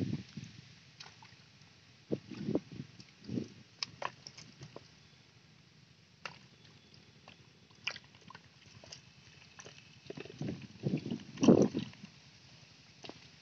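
Bare hands digging and squelching in wet mud and shallow water, with short irregular sloshes and wet slaps coming in two spells, the second, near the end, the loudest.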